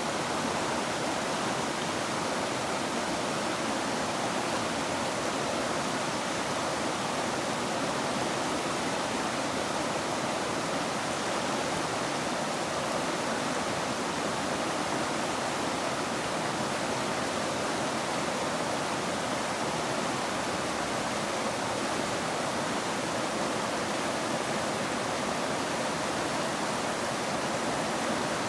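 River water rushing: a steady, even noise that does not change.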